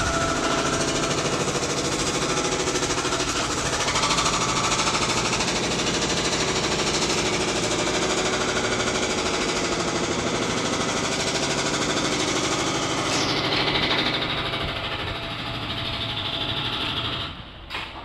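Demolition hammer pounding the concrete of a building being torn down: a fast, steady, continuous hammering. It turns duller about two-thirds through and drops away abruptly near the end.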